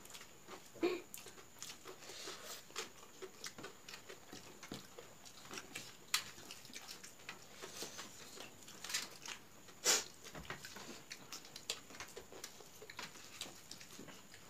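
Eating by hand: fingers squishing and mixing rice with egg curry on steel plates, with wet chewing and lip-smacking, heard as a run of small irregular clicks. The loudest click comes about ten seconds in.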